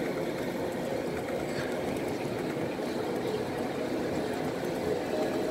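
Train running, a steady hum with no clear rhythm.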